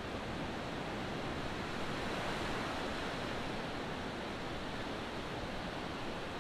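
Ocean surf washing on the shore, a steady rushing noise with no distinct breaks.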